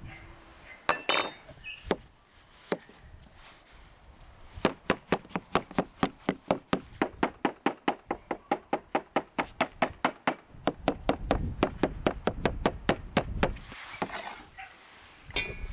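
Large kitchen knife chopping boiled potatoes on a wooden cutting board: a few single knocks, then from about five seconds in a fast, even run of blade strikes on the wood, about four a second, that stops shortly before the end.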